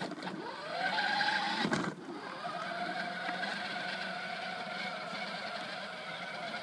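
Battery-powered ride-on toy Hummer's electric drive motors whining as it pulls away: the pitch rises over about the first second, then holds steady as it drives along. A short knock sounds near two seconds in.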